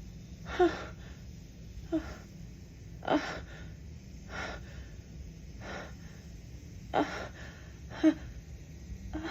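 A woman's short, catching pre-sneeze gasps, about seven in a row a second or so apart, some with a small rising voiced catch. She is right on the edge of a sneeze that will not come.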